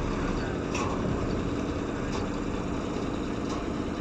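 Three-axle dump truck's diesel engine running steadily at low revs as the truck creeps forward and turns.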